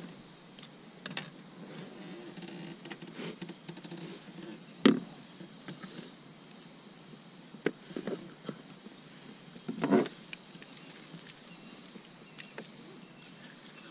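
Handling noise on a plastic fishing kayak as a freshly landed small bass is unhooked with pliers: scattered clicks, rustles and knocks, with two loud thumps about five and ten seconds in.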